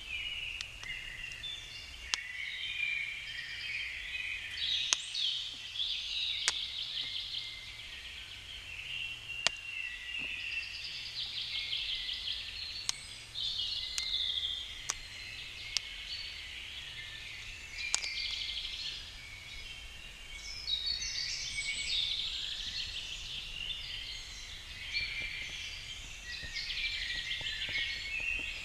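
Woodland birds singing continuously, with a campfire crackling and giving off irregular sharp pops.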